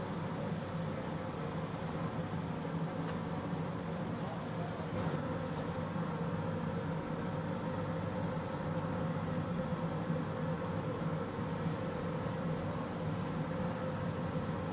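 Steady machine hum: a constant low drone with a steady higher tone over it.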